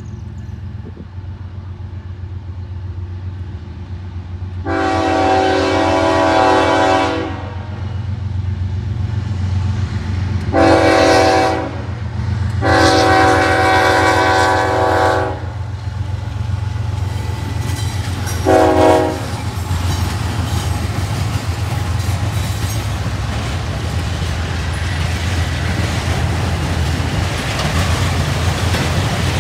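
Union Pacific freight train's diesel locomotives blowing their multi-chime air horn four times, long, short, long, short, over a steady engine rumble. After the horn, the clatter of the autorack cars' wheels on the rails builds as the train passes.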